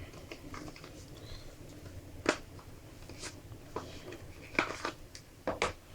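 Scattered sharp clicks and taps of the MacBook Air's box and its packaging being handled as the accessories are taken out, with one louder knock about two seconds in and a quick cluster of taps near the end.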